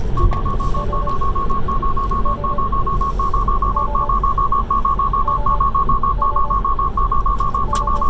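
Tesla's urgent 'take over immediately' alert chime: rapid high beeping in quick bursts of about five, repeating without a pause over cabin road noise. The car is sounding it because the driver's seatbelt was unbuckled while Autopilot was engaged.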